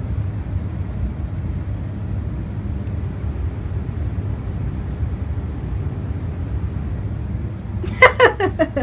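A steady low rumble, with a short run of quick high-pitched vocal sounds near the end.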